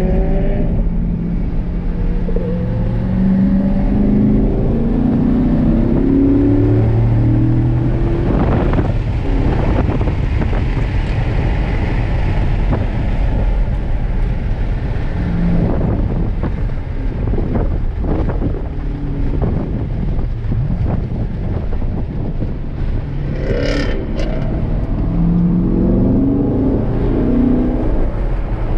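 2017 Corvette Grand Sport's LT1 6.2-litre V8 heard from inside the cabin under hard driving, its pitch climbing and then stepping down at upshifts of the manual gearbox, easing off in between, over a steady rumble of road noise. A short sharp high-pitched sound comes near the end, just before the engine pulls up through the gears again.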